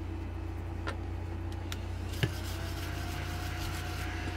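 A scratch-off sticker is peeled and pressed onto a plastic binder pocket by hand, giving a few light clicks and one sharper tap a little over two seconds in. A steady low electrical hum runs under it.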